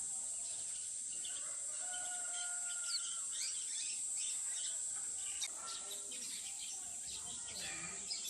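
Small songbirds chirping: short, high chirps scattered throughout, with one held whistled note about two seconds in, over a steady high-pitched hiss.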